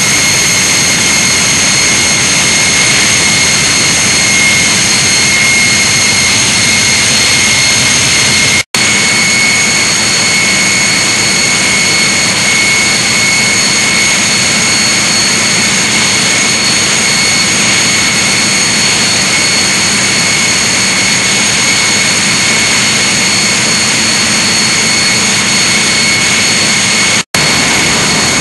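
Large power-plant generator engine running steadily on a test run: loud, even engine noise with a steady high whine over it. The sound cuts out for an instant twice.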